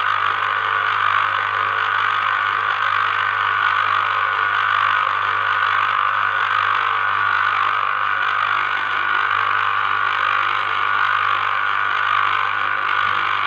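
Electric citrus juicer running: its motor spins the reamer cone as a citrus half is pressed down on it, giving a steady whirr over a low hum.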